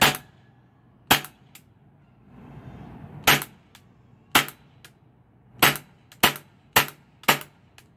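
Gas blowback airsoft pistol firing eight single shots at uneven intervals, each a sharp crack, a few followed by a faint click, as the magazine is shot empty.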